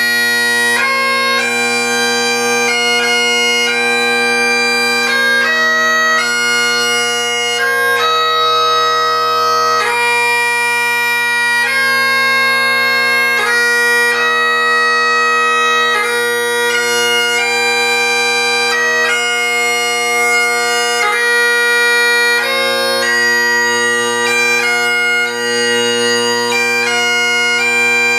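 Great Highland bagpipe played solo: the steady drones sound under the chanter, which plays the slow, long-held notes of a piobaireachd, broken by quick grace-note flourishes.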